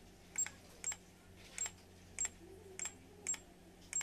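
Buttons on an LED facial mask's control unit being pressed about seven times in a row, roughly every half second. Each press gives a sharp click with a short high beep as the unit steps through its light settings.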